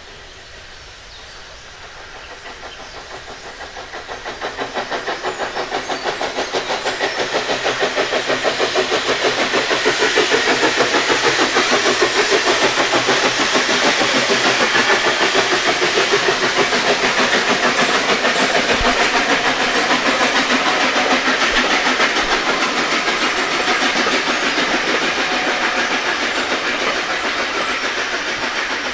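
Steam tank locomotive hauling a train of coaches past at close range, with rhythmic exhaust beats. The sound grows louder a few seconds in, then eases slightly as the coaches roll by.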